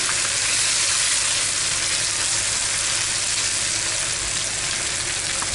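Steady, loud sizzle of marinated chicken pieces shallow-frying in hot refined oil in a pan.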